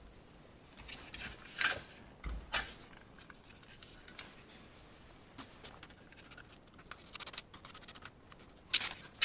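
Handling noise from a Mercedes W126 speedometer gauge being picked up and turned over in the hands: scattered light scrapes and clicks of its plastic housing, with louder clacks about one and a half and two and a half seconds in and near the end.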